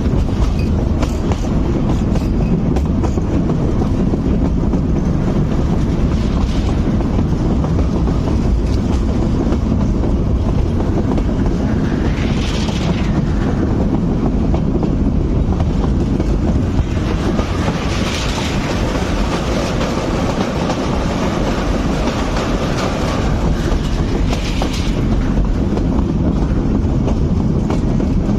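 Metre-gauge passenger coach running on the track, heard from on board: a steady rumble of wheels on rails with a clickety-clack. Three brief higher-pitched sounds rise over it, the first about halfway through.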